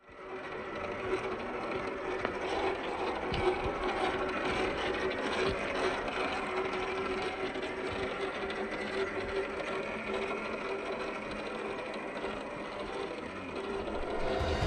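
Electric motor and gear train of a Boom Racing BRX02 Land Rover 88 Series III RC crawler whirring steadily as it crawls over dirt, with occasional small clicks.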